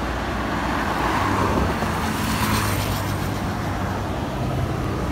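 Road traffic noise, a steady rumble, with a vehicle going by on the road about one to two seconds in.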